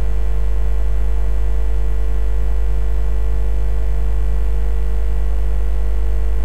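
Steady low electrical hum, mains hum in the recording, with a few faint steady higher tones over it and no change throughout.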